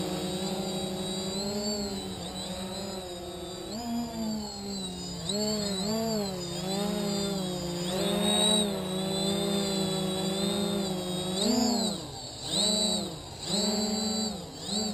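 SKY-Hero Little Spyder quadcopter's four Cobra 2217 950kv motors spinning 10x4.5 props in a low hover, a steady buzzing hum whose pitch wavers with the throttle corrections. Over the last few seconds the pitch dips and rises again several times.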